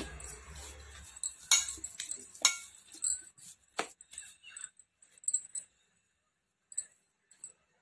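Scattered sharp clinks and light taps as hands knead soft dough in a nonstick pan, with the bangles on the wrist clinking. The clinks come thickly for the first few seconds, then only now and then.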